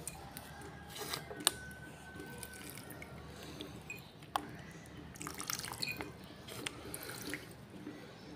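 Nitric acid solution dripping through filter paper into a bucket below, with a couple of sharp clicks and more liquid noise in the second half.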